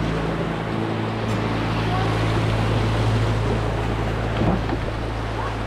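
Steady rush of whitewater from a rocky river rapid around the canoe, with background music holding a low sustained chord underneath.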